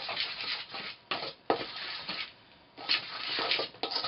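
Spoon scraping and stirring in a stainless steel mixing bowl while mixing flour and water into a stiff dumpling dough, in repeated uneven scraping strokes.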